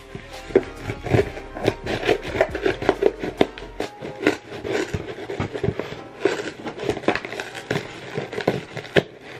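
Scissors snipping and scraping at a white mailer package while it is crinkled and handled, a busy run of short clicks and rustles, with music underneath.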